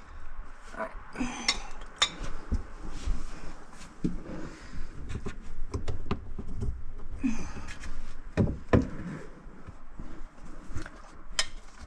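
Clinks, knocks and rustling as tools, a cord and a drop cloth are handled inside a kitchen sink cabinet, with a couple of heavier thumps about eight and a half seconds in.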